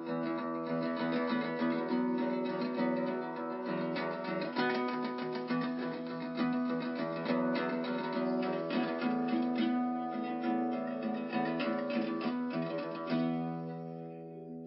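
Acoustic guitar music: quick plucked notes over sustained low notes. Near the end the picking stops and the last chord rings out and fades.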